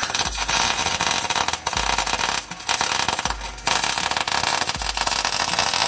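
Electric welding arc crackling steadily, with a few short breaks, as a steel plate is welded to a lower control arm.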